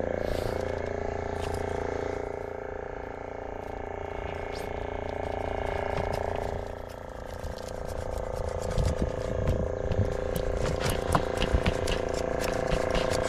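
A small engine running steadily. From about eight and a half seconds in, irregular knocks and taps come over it.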